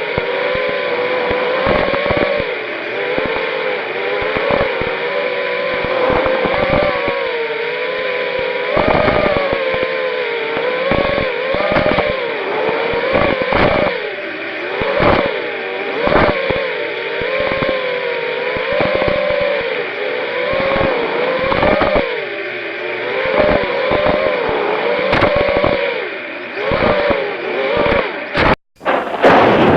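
250-size quadcopter's brushless motors whining in flight, their pitch rising and falling with throttle, with a grinding noise throughout that the owner puts down to a loose magnet in the #4 motor. Near the end the sound cuts out for a moment, then a loud rushing noise starts.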